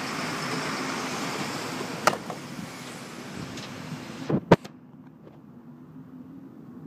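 A corrugated cardboard wine-bottle postage box with a bottle inside hits brick paving with one sharp thud about two seconds in, and there is no sound of breaking glass. About two seconds later comes a louder double knock, over a steady background of traffic noise that falls away near the middle.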